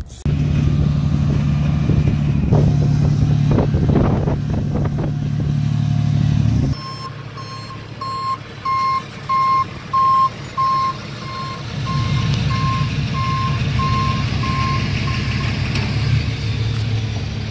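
A heavy vehicle's engine runs steadily at first, with a few clanks. After a cut, a reversing alarm beeps about twice a second for several seconds while an engine keeps running.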